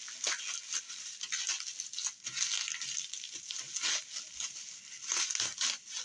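Plastic bubble wrap being handled and pulled off a figure piece, with irregular crinkling and crackling.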